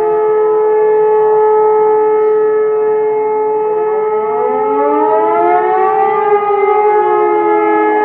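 Several civil-defense sirens sounding during the monthly siren test. One holds a loud steady tone, and from about halfway in others join with pitches rising and falling across it.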